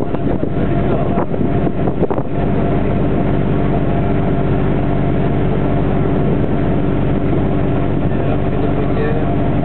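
Boat engine running steadily at an even pitch, with wind buffeting the microphone in the first couple of seconds.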